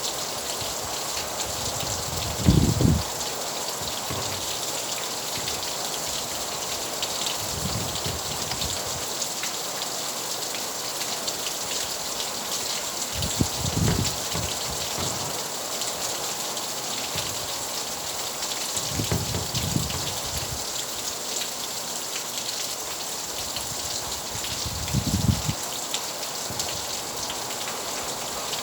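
Steady rain falling on a surface, a continuous hiss speckled with individual drops. A few brief low thumps stand out, the loudest about two and a half seconds in, with others near the middle and near the end.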